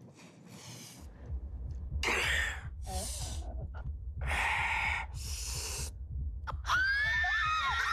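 A person breathing heavily, four loud breaths in and out, over a low steady hum that starts about a second in. Near the end comes a high-pitched cry or squeal of a woman's voice.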